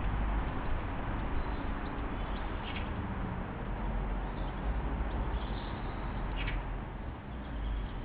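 Steady outdoor background hiss with a low rumble, broken twice by a short, faint, high bird chirp about four seconds apart.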